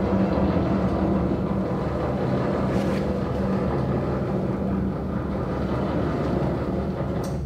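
Steady running motor drone with a low hum, cutting off suddenly just before the end.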